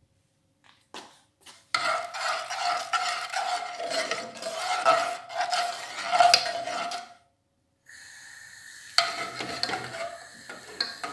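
A metal spoon scraping and stirring around an aluminium saucepan of milk, the pan ringing under the strokes. After a short break a steady hiss comes in and the stirring carries on over it.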